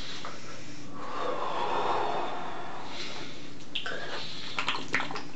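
A man breathing heavily and sniffing through his nose, with a long noisy breath about a second in, then a few small clicks near the end, over a steady hiss.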